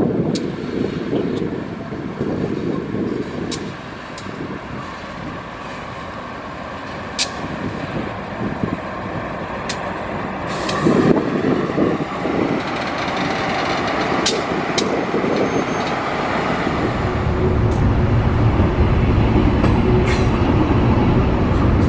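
Aurizon diesel-electric locomotive running light past a station, with scattered sharp wheel clicks over the rails. From about 17 s in, the louder run of an electric passenger train passing close takes over.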